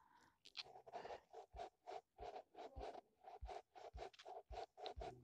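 Faint rhythmic scratching, about four short strokes a second, starting about half a second in.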